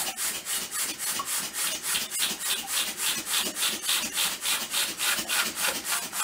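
Manual foot-operated air-mattress pump, rigged with its outlet moved onto its inlet so that it sucks, worked quickly by foot: rhythmic airy whooshes at about four a second. It is drawing a vacuum that pulls water through filter paper into the filter jar.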